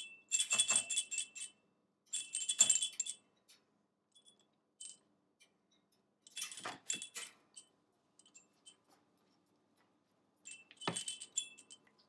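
Small bell inside a soft fabric cow-shaped baby rattle jingling as an African grey parrot shakes it in his beak, in four short bursts of rapid jingles with pauses between.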